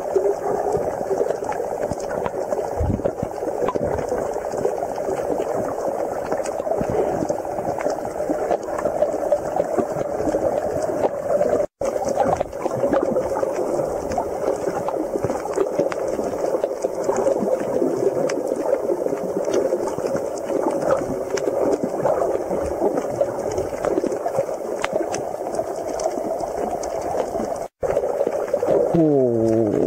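Muffled underwater sound from a camera held below the surface: a steady watery rush with fine crackling. It breaks off for an instant twice, and a short falling sweep comes near the end.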